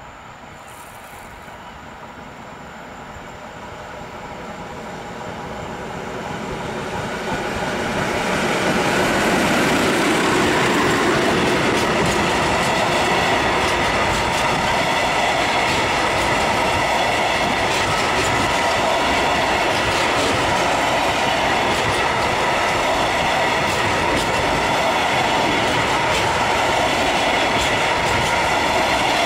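Freight train headed by a 6Dg diesel locomotive approaching and passing close by. The sound grows steadily louder over the first eight or nine seconds, then a long string of powder hopper wagons runs past with even rail clatter.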